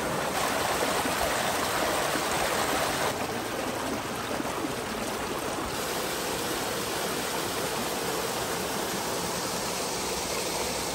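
Water rushing and splashing steadily. First it pours out of a drain pipe over rocks, then it falls over a small waterfall into a stream. The sound changes about three seconds in.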